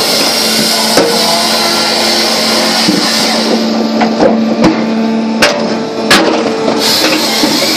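SAMI Autochopper firewood processor and drum cleaner running with a steady machine hum, broken by irregular sharp knocks of birch logs and split firewood striking the steel, several of them loud.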